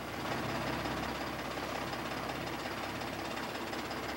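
A fishing boat's engine running steadily at sea, a continuous low drone.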